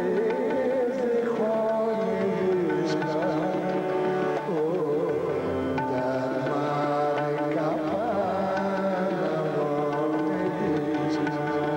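A male singer of Hindustani classical music sings a ghazal, with quick wavering ornamental runs, over sustained melodic accompaniment and tabla.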